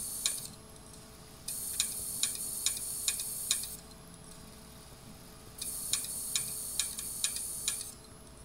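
Opened, failing 2.5-inch hard drive doing random sector reads: its head arm seeks with sharp ticks about two or three a second over a high hiss. The ticking comes in runs of about two seconds, with quieter pauses of about two seconds between them.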